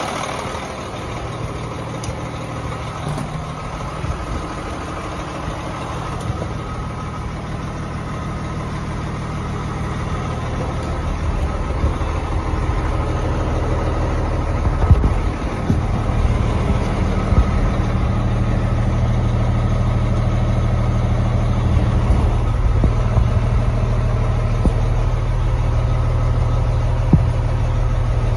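Heavy dump truck's diesel engine idling steadily, with a few light clicks and knocks on top.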